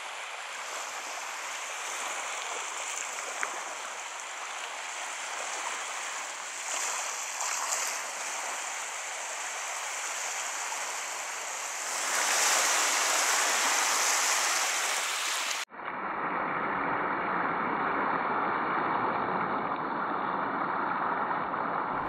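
Small waves of the Black Sea washing on the shore, a steady hiss of surf that grows louder about twelve seconds in. A few seconds later it cuts off abruptly, and the surf goes on, duller and more muffled.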